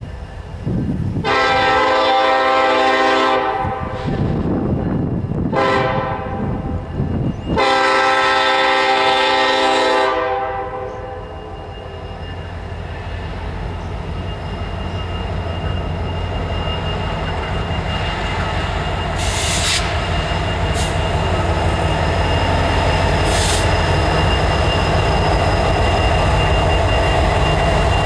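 Diesel freight train locomotive horn sounding two long chords about five seconds apart. Then the approaching diesel locomotives rumble and their wheels roll on the rails, growing steadily louder as the train draws near.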